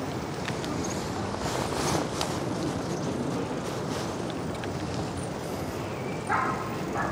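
Steady rush of wind and tyre noise from an e-scooter rolling along a paved path, with a few faint clicks. A dog barks twice near the end.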